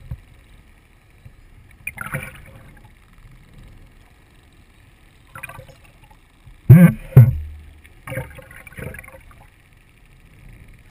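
Muffled water sloshing heard through an underwater camera housing just below the surface, broken by several brief splashes and bumps, the loudest a close pair about seven seconds in.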